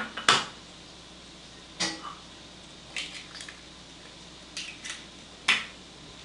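Eggs being cracked against the edge of a bowl: a string of sharp taps and shell cracks, some in quick pairs, spread about a second apart, with the shells clinking on the bowls.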